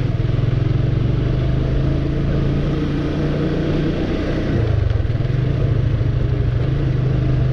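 Motorcycle engine running steadily while riding, its note easing off a little past the middle and picking up again.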